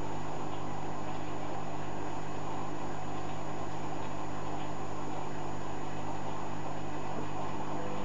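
Hoover Dynamic Next front-loading washing machine running mid-cycle with a steady low hum and a few fixed low tones, unchanging throughout.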